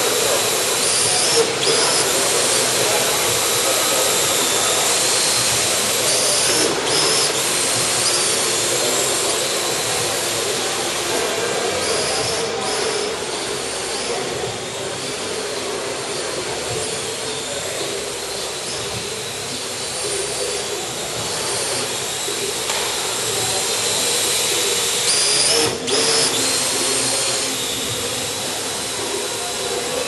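Parrot AR.Drone 2.0 quadcopter's four electric motors and propellers whirring steadily in flight, the pitch wavering slightly as it manoeuvres.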